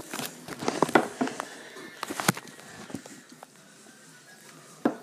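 Handling noise: a quick run of clicks and knocks as the camera and a spray can of cheese are handled over a wooden table. It then goes quieter, with one sharp knock near the end.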